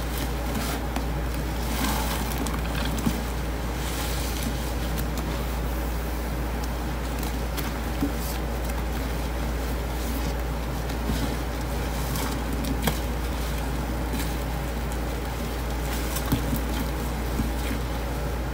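Wet squelching and crackling of a sponge being squeezed in gloved hands and pressed into thick detergent paste in a stainless-steel sink, with scattered sharp squishes. A steady low hum runs underneath.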